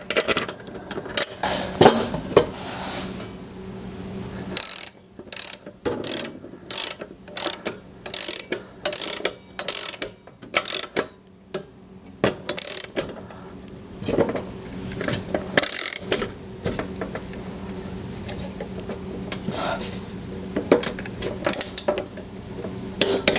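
Socket ratchet clicking in short runs of strokes as the push mower's blade bolt is run down and tightened.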